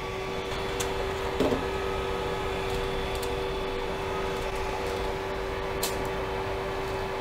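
Steady hum of a Creality CR-10S Pro 3D printer's cooling fans running while it is powered on, with a few light clicks as the filament is handled at the extruder.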